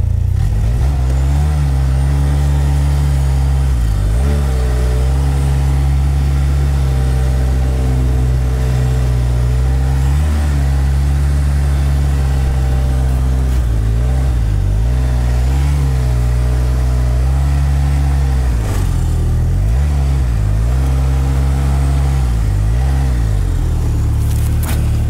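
Snowmobile engine running under way, its pitch dipping and rising again several times as the throttle eases and opens. A few short knocks come near the end.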